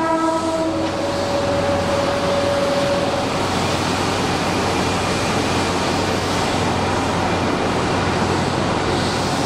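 Steady noise of a Keihan electric train standing at an underground station platform. The tail of a train horn chord sounds in the first second, and one held tone carries on until about three seconds in.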